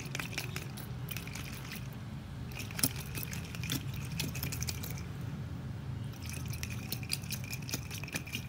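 A boiled egg shaken hard inside a covered glass of water: rapid knocks of the egg against the glass with water sloshing, cracking the shell so it peels easily. The shaking pauses briefly twice.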